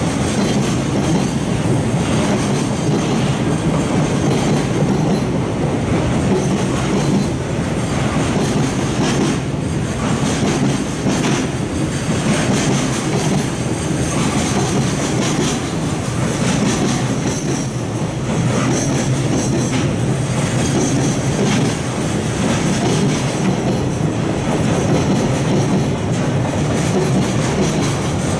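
Container flatcars of a long freight train rolling past: a steady rumble of steel wheels on the rails, with clicks as wheels cross rail joints.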